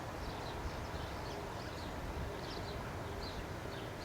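Outdoor ambience: birds chirping in short, downward-sliding calls several times a second, over a steady low rumble.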